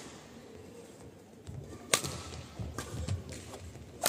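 Two badminton racket strikes on a shuttlecock about two seconds apart, the second a hard overhead shot near the end, with players' footfalls thudding on the court between.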